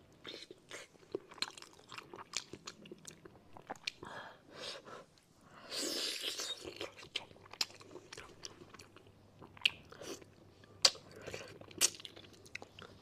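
Close-up eating sounds of braised fish being bitten and chewed: wet mouth clicks and smacks, with a longer sucking noise about six seconds in and a few sharper, louder clicks near the end.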